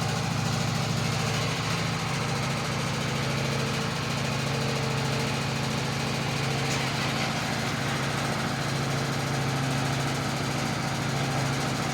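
A small engine running steadily at an even speed, with a constant low hum and no change in pitch.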